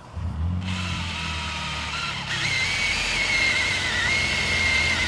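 Cordless drill running steadily as it bores the centre hole through the sheet-metal side panel of a Ford Transit van. There is a low hum under a high whine that steps up in pitch about two seconds in.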